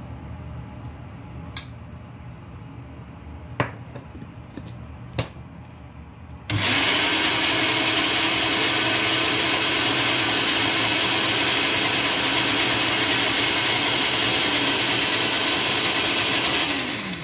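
A few light clicks and knocks, then about six seconds in a countertop blender with a glass jar switches on and runs steadily for about ten seconds, blending a milk mixture to thicken it into sweetened condensed milk, before cutting off just before the end.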